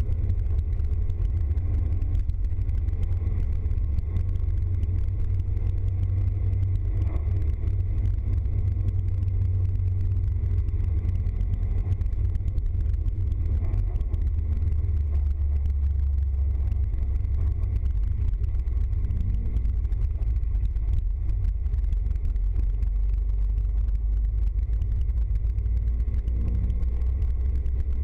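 Steady low rumble of a van's engine and tyres, heard from inside the cab while it drives along a wet road.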